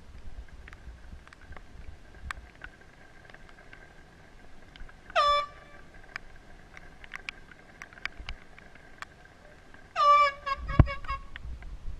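Air horn sounding twice: one short blast about five seconds in, then a second blast about five seconds later that breaks into a few quick stuttering toots. Each blast starts with a sharp downward drop in pitch. A sharp thump lands among the stuttering toots.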